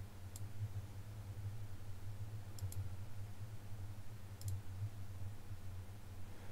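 Computer mouse buttons clicking: a single click, then two quick double clicks about two seconds apart, over a steady low hum.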